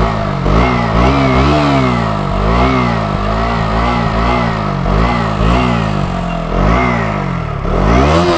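KTM Duke 125 (2021 BS6) single-cylinder engine revved in repeated short throttle blips, about one a second, each one rising and falling in pitch, heard close to its underbelly silencer.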